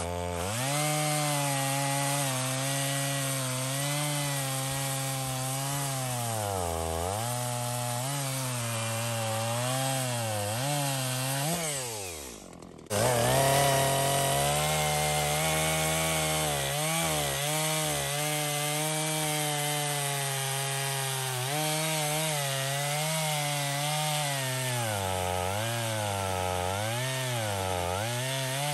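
Stihl MS 250 two-stroke chainsaw cutting firewood, its engine note dipping as the chain loads up in the cut and rising again as it frees. About twelve seconds in the note falls away and cuts out for a moment, then the saw is back at full speed.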